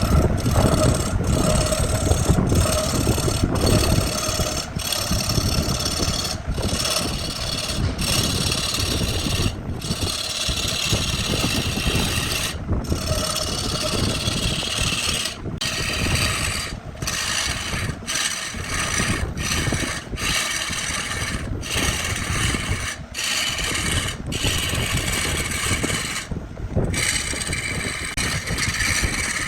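Wood lathe spinning a wood-and-epoxy blank while a tool or abrasive rasps and scrapes against it, over a faint steady hum. The noise is broken by brief drop-outs every one to three seconds.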